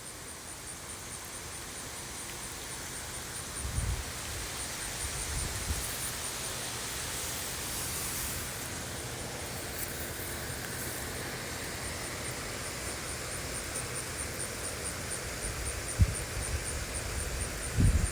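Steady rain falling, a constant even hiss that swells over the first few seconds and then holds, with a couple of brief low thumps.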